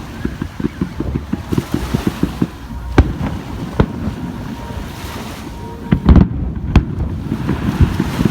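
Fireworks bursting overhead: a run of quick crackles in the first couple of seconds, then single sharp bangs about three and four seconds in, and the loudest cluster of booms just after six seconds.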